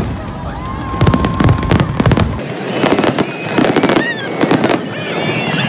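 Large aerial fireworks display: shells bursting one after another in quick succession, with dense crackling between the bangs.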